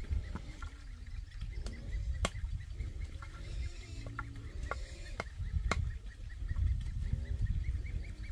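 Sharp wooden knocks, about seven spread through the middle few seconds, as small stakes are tapped into the soil to hold a board on edge along a trench. Domestic fowl cluck in the background.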